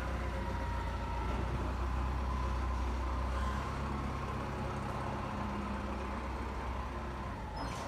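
Heavy work vehicle's engine running steadily, its deep low rumble dropping away about three and a half seconds in.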